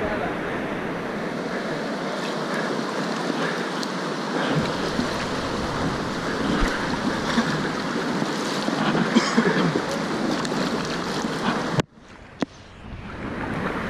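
River water rushing and splashing around a whitewater kayak, with paddle-stroke splashes and wind on the microphone. Near the end the sound cuts out suddenly to a low muffled level, then swells back over about a second.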